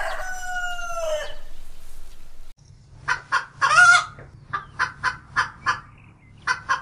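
Rooster crowing: the drawn-out end of a crow, falling slightly in pitch and stopping a little over a second in. After a pause comes a run of short clucks, about three a second, with one longer call in the middle.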